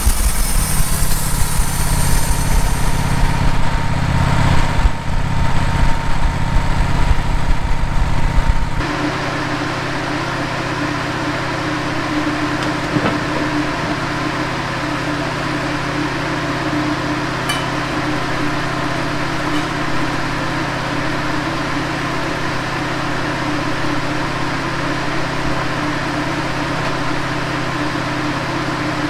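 Wood-Mizer LT15 bandsaw mill sawing through a pine log, its engine working under load, for about the first nine seconds. The sound then drops abruptly to the engine running steadily at a lower, even level.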